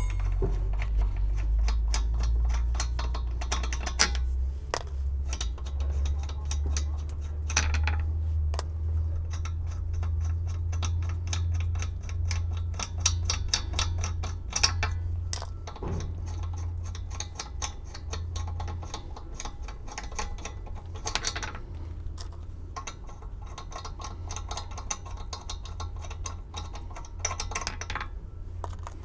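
Ratchet wrench clicking, with light metal clinks, as a car wheel's lug nuts are taken off, over a steady low rumble.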